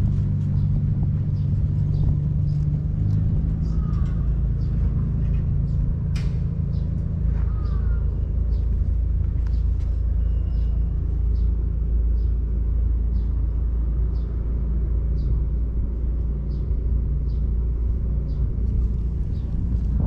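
An engine idling: a steady low rumble with a droning hum. Faint short high chirps come and go over it.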